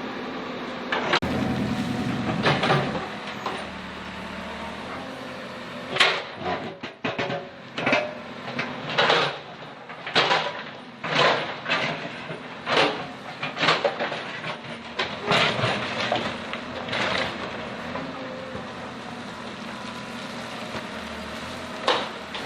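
Backhoe diesel engine running steadily while digging, with a run of sharp, irregular clanks and scrapes, roughly one or two a second, from about six seconds in until near the end of the middle stretch, as the bucket works into the soakaway pit's soil and rock.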